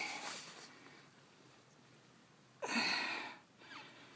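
Two short, breathy vocal sounds, each falling in pitch: one right at the start and a louder one just under three seconds in.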